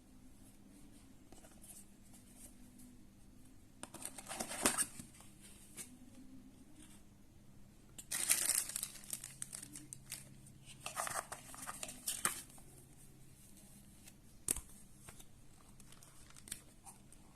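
Packaging being opened by hand: crinkling and tearing in three bursts, about four, eight and eleven seconds in, with one sharp click a little later.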